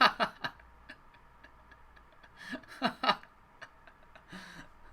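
Scattered light clicks and ticks of a cardboard box and its packaging being handled and opened, with a short burst of voice about halfway through.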